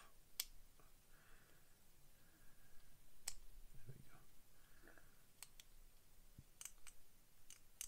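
Faint, sharp clicks at irregular intervals, a handful in all, as hobby tools (sprue cutters and a blade) trim and scrape a tiny plastic kit part clean.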